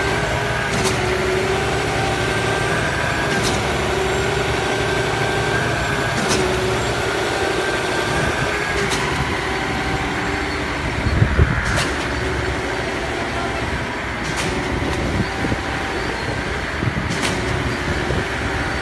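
Putzmeister truck-mounted concrete boom pump running steadily under load while pumping concrete, with a sharp knock repeating about every three seconds as the pump changes stroke. A louder low thud comes about eleven seconds in.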